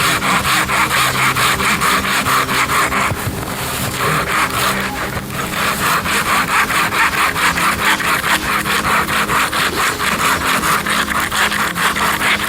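Hand saw cutting through wood in quick, even back-and-forth strokes, about three a second. The sawing eases off about three seconds in, then picks up again.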